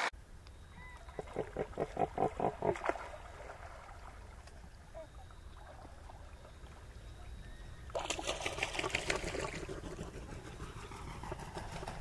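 Australian pelican calling: a run of about ten short pulsed calls, roughly five a second, about a second in, then another rapid pulsed run around eight seconds in and more near the end, over a faint steady low rumble.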